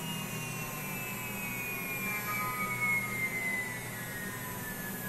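CNC router spindle motor running at about 20,000 RPM: a quiet, high whine that slides slowly down in pitch over a low steady hum.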